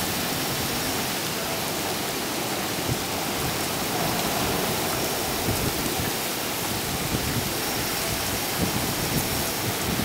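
Typhoon rain pouring steadily, a dense even hiss with a few scattered taps.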